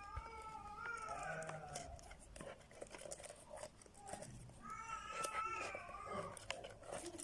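A cat meowing: one drawn-out, wavering call over the first two seconds and another about five seconds in, with scattered light clicks between them.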